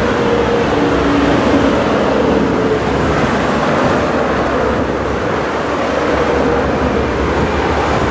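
Steady roar of motorway traffic: tyres and engines of lorries and cars passing at speed, with a faint wavering hum of truck engines over it.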